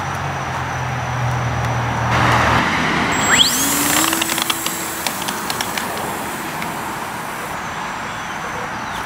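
Electric motor and propeller of a radio-controlled model plane. A steady hum, then a whine that rises sharply about three seconds in as the motor is throttled up, with scattered clicks for a few seconds after.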